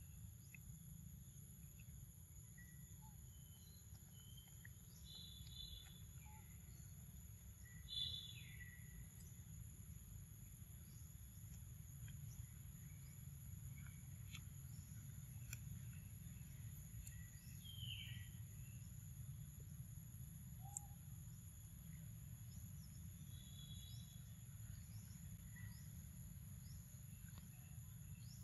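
Quiet outdoor ambience: a steady high-pitched insect drone over a low rumble, with a few short bird chirps, the loudest about 8 seconds in.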